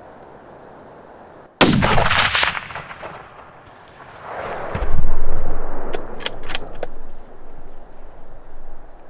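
A single hunting rifle shot cracks out suddenly and rolls away in a long echo. A louder rumble swells up a few seconds later, followed by a few sharp clicks.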